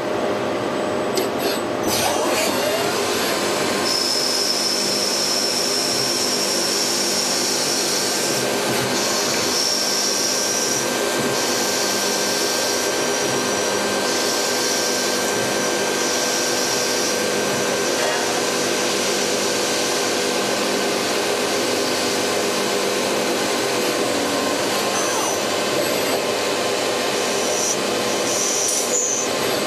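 Miyano BNA-42DHY CNC lathe running: a steady mechanical hum and hiss with several steady tones, and a high-pitched whine that comes and goes during the first half.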